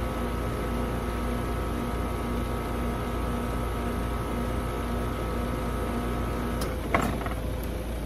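2010 Trane XL15i heat pump outdoor unit running in heat mode: its Alliance scroll compressor hums steadily under the fan. About six and a half seconds in, the compressor cuts out, followed by a short clunk, and the fan begins to wind down as the unit shuts off.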